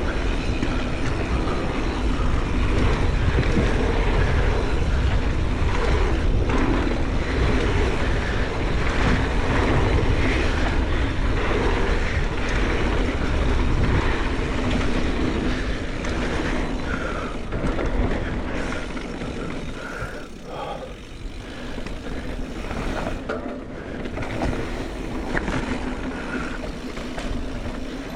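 Mountain bike descending a dirt trail: a continuous rush of wind on the microphone mixed with tyres rolling and the bike rattling over the ground. It eases off for a while about twenty seconds in.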